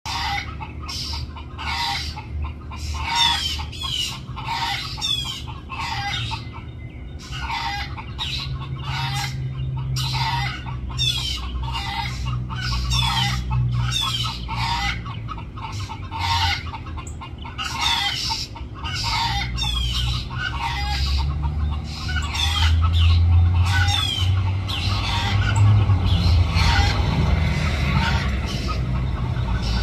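Feral chickens calling in short, repeated clucks, about one or two a second, with thin high calls falling in pitch among them. A low rumble underneath grows louder in the last several seconds.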